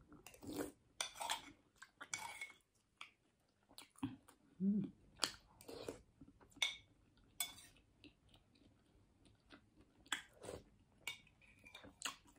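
Close-up eating sounds: chewing and wet mouth noises from spoonfuls of lomi noodle soup, with a metal spoon clinking and scraping on a ceramic bowl. The sounds come in short, irregular bursts.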